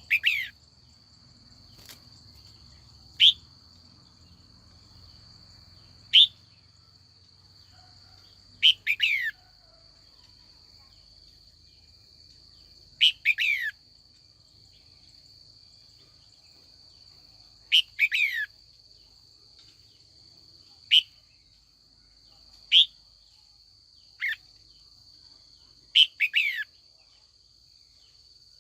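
Female red-whiskered bulbul calling to lure wild birds: short falling calls every few seconds, some single and some in quick runs of two or three. A steady high whine runs underneath.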